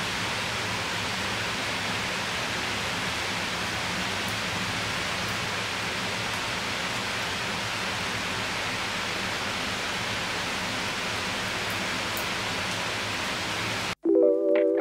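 Steady, even hiss of rain, with a few faint ticks. Near the end it cuts off abruptly and music begins.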